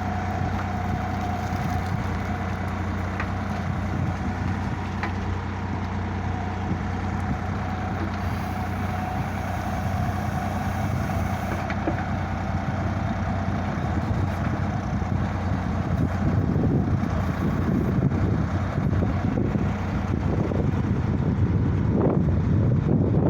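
Sonalika tractor's diesel engine running steadily while it powers the agri backhoe, with a steady whine over it for roughly the first half. The sound grows louder and rougher about sixteen seconds in.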